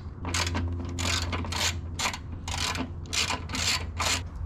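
A ratchet wrench worked back and forth in short rasping strokes, about two a second, loosening a fastener on the car's intake.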